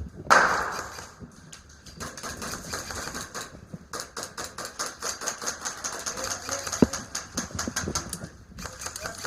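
Airsoft guns firing in rapid automatic bursts: a fast run of sharp clicks that breaks off briefly twice. A short loud hiss comes just after the start.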